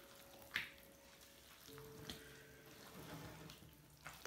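Spatula stirring runny soda bread batter in a ceramic mixing bowl: quiet wet squelching, with a few short scrapes or taps against the bowl, the sharpest about half a second in.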